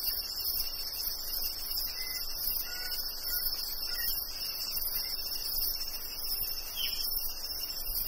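Rainforest crickets and cicadas chorusing steadily at a high pitch, with a fast even pulsing in the highest part. A few faint, short bird calls come through between about two and four seconds in, and another brief call near the end.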